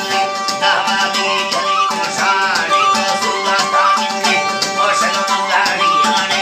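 Balochi narsur: a narh reed flute played over a steady hummed vocal drone, the melody wavering and sliding above the held low tone, with a rapid rattling, clicking accompaniment.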